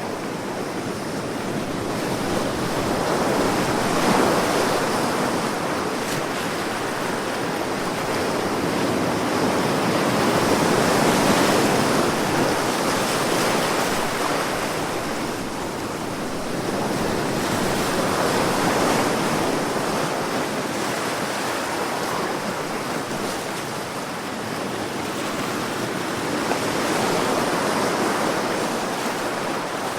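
Sea waves breaking and washing in, a steady rush that swells and eases every six to eight seconds.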